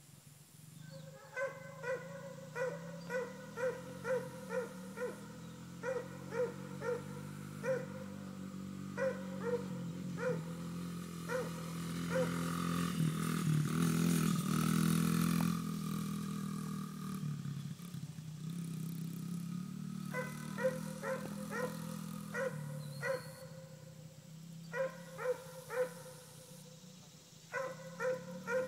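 A dog barking in runs of quick barks, about two a second, over the small single-cylinder four-stroke engine of a Honda CRF50 minibike running across the field, its engine growing louder as it passes close about halfway through and then fading away.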